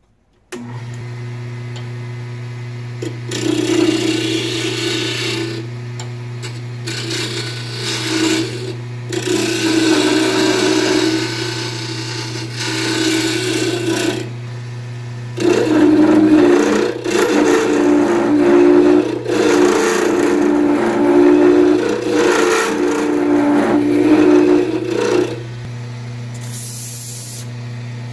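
Jet wood lathe switched on about half a second in, its motor running with a steady hum, while a hand-held turning tool cuts the spinning wooden handle blank in two long bouts of scraping and shaving. The cutting stops about 25 seconds in and the lathe runs on alone.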